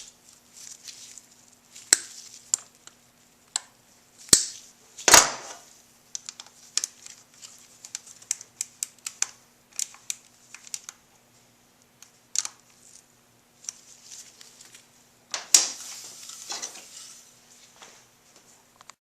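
Irregular metallic clicks, clinks and knocks of hand tools and parts being handled, with a few louder knocks about four, five and fifteen seconds in.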